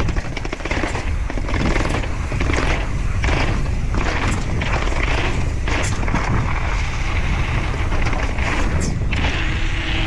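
Wind buffeting the microphone as a downhill mountain bike rolls down concrete stairs and a paved path, with a series of sharp knocks and rattles from the bike over the steps and bumps.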